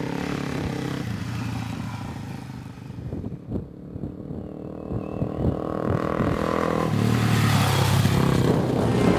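Suzuki DRZ400 dirt bike's single-cylinder four-stroke engine running off-road, quieter in the middle and growing louder toward the end as the bike comes close and passes. A few light clicks and clatters come in the middle.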